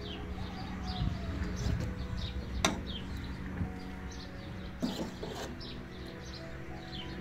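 Small birds chirping throughout in short, repeated falling notes over a steady low hum. A metal serving spoon clinks sharply against the dishes a few times, loudest about two and a half seconds in.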